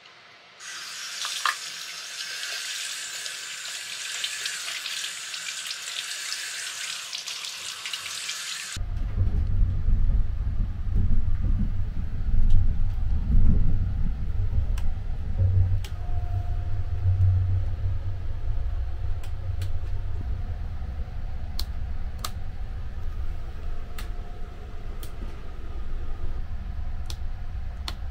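A washbasin tap runs water into a sink for about eight seconds. It then cuts to the steady low rumble of the Sunrise Express sleeper train running, heard from inside a compartment, with scattered light clicks.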